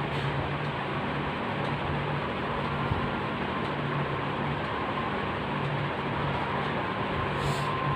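Steady hiss with a low, even hum and a faint steady tone, like a running fan or other machine; no distinct events.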